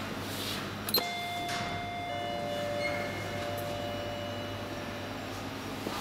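Lift arrival chime: a click, then two ringing notes about a second apart, the second lower, each fading out over a few seconds.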